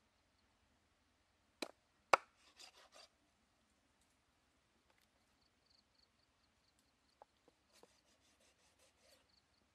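Knife chopping and scraping on a wooden cutting board. There are two sharp knocks about two seconds in, the second the louder, then a few short scraping strokes, and another quick run of scraping strokes near the end.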